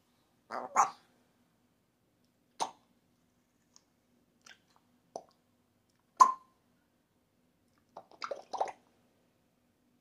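African grey parrot making short clicks and pops, one every second or two, with a quick cluster of them near the end.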